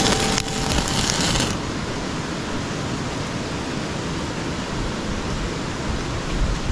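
Meat sizzling on a wire grill over a crackling wood fire. About a second and a half in, the sizzle cuts off and gives way to a steady rushing hiss.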